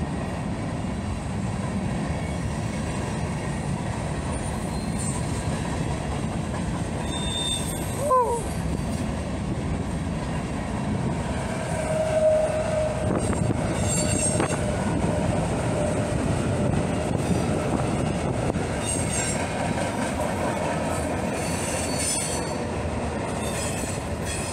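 Freight cars of a mixed freight train rolling past with a steady rumble of wheels on rail. A brief loud squeal falls in pitch about eight seconds in, and a wheel squeal holds one tone for a moment around twelve seconds in.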